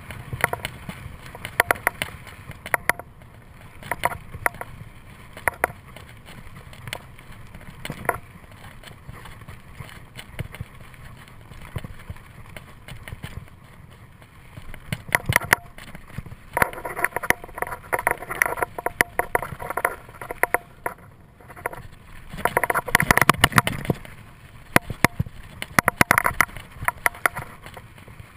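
Mountain bike ridden along a dirt singletrack: steady rushing of the tyres on the trail with frequent sharp clicks and clattering knocks as the bike jolts over bumps, getting louder for a few seconds past the middle and again near the end.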